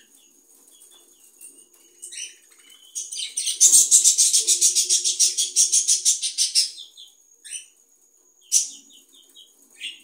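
Small parrots: a fast run of rustling pulses, about eight a second, lasting some three seconds in the middle, with short high chirps scattered before and after it.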